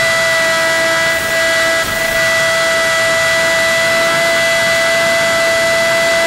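Electric motor of an RC plane whining at steady throttle, one unchanging pitch over the rush of airflow.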